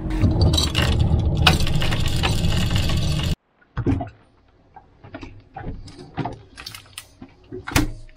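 A loud, steady rushing noise for about three seconds that cuts off suddenly, followed by the clicks, knocks and clinks of a boat's small front-opening refrigerator being opened and a jar taken out from among cans and bottles, with the sharpest knock near the end.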